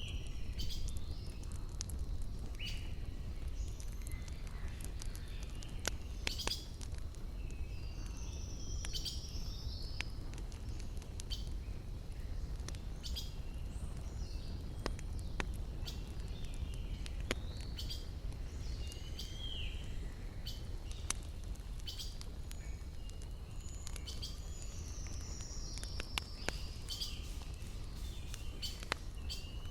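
Wood fire crackling, with sharp pops scattered irregularly, over a steady low rumble, while birds chirp with short whistled calls several times.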